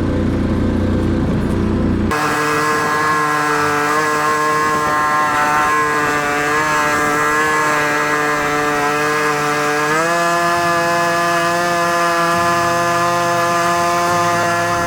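Chainsaw running at high revs, holding a steady high note that wavers slightly as it cuts, then steps up in pitch about ten seconds in as the load comes off. It is preceded in the first two seconds by a low engine rumble that breaks off abruptly.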